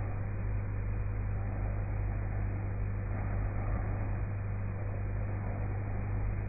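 Steady low hum with a constant hiss, unchanging throughout; no separate breaths or snores stand out.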